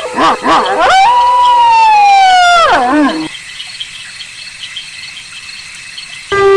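Wolf howling: a quick wavering yip-like call, then one long howl that slides slowly down in pitch and drops away at its end about three seconds in. After a quieter stretch with faint background ticking, another loud, steady howl begins near the end.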